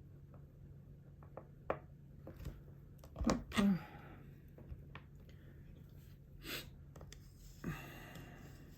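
Faint clicks and taps of small watchmaker's tools against a mechanical watch movement being taken apart, with a louder cluster of handling noises about three seconds in and a breathy noise near the end.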